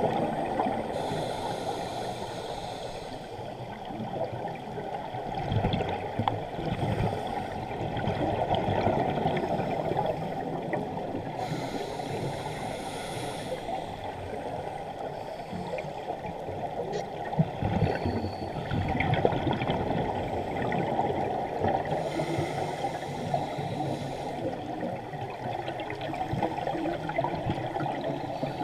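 Muffled underwater rushing heard through a camera's waterproof housing, with a scuba regulator's exhaled bubbles bubbling up three times, about ten seconds apart.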